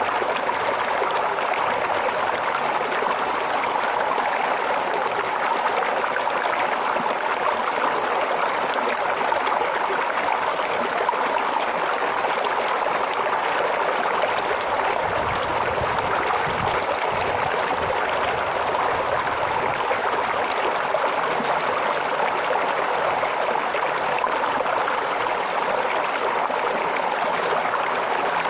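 Small stream of water running steadily over stones, a constant babbling with no breaks.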